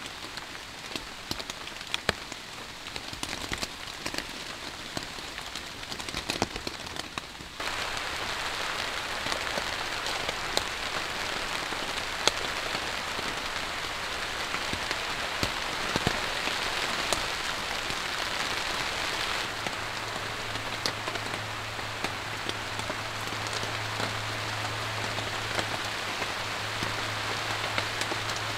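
Rain falling on a tarp, at first with single drops heard separately, then about a quarter of the way in turning abruptly into a denser, louder downpour. A low steady hum joins in past the middle.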